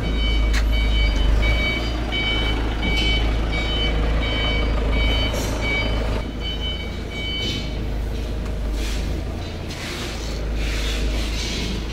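A vehicle's reversing alarm beeps in a steady run of short, evenly repeated beeps, stopping about eight seconds in, over a steady low rumble. Bursts of rustling follow near the end.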